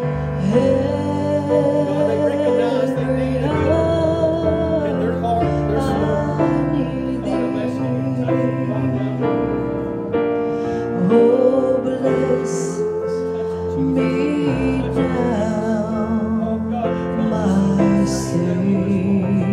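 A gospel song sung with instrumental accompaniment; the voice wavers with vibrato on its long held notes over sustained chords.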